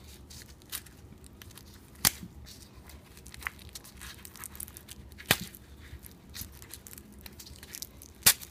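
Strap webbing being worked and pulled through a buckle: faint rustling and scraping, with a sharp click about two seconds in, another about five seconds in, and one near the end.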